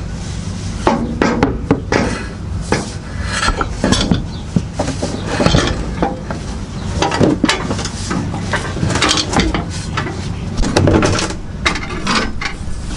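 Replacement drive shaft (propeller shaft) for a 2009 Subaru Outback clanking and knocking irregularly against the car's underbody as it is worked into place by hand.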